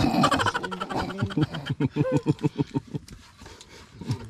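A person laughing loudly: a quick run of ha-ha pulses, about six a second, that tails off after about three seconds.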